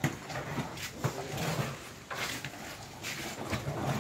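Long wooden paddles scraping and knocking in a large wok of thick, sticky jenang as it is stirred, in irregular strokes.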